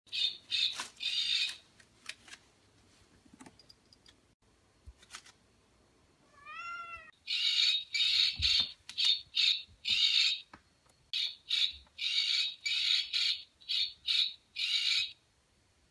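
A cat and a bird in a scuffle: a run of short, harsh, noisy cries, two near the start and about a dozen close together in the second half. One brief wavering pitched call comes just before the run.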